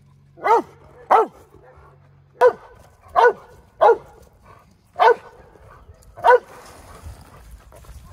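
Dog barking, seven single barks at uneven gaps of roughly half a second to a second.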